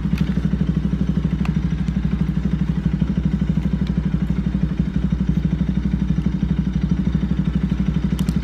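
Motorcycle engine idling steadily with a fast, even pulse.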